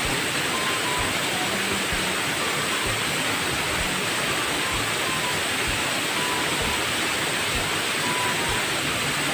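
Steady, loud rush of a waterfall: falling water making an even hiss.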